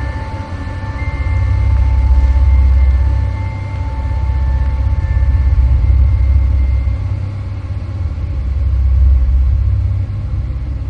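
Wind buffeting the microphone: a low rumble that swells and fades in gusts every few seconds, with faint steady high tones over it.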